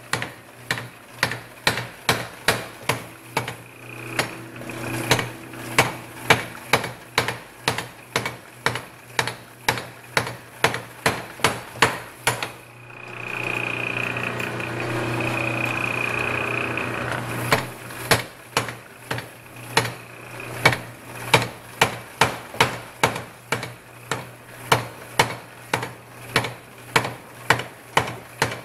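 Power hammer striking red-hot leaf-spring steel held in tongs, about two blows a second, forging the edge of the bar down into a wedge. The blows stop for about five seconds midway, leaving a steady rushing noise, then start again. A low machine hum runs underneath.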